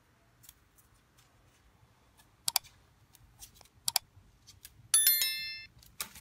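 Sound effects of a like-and-subscribe animation: two quick double mouse clicks, then a bright bell-like notification chime about five seconds in that rings briefly and fades, with faint scattered ticks between.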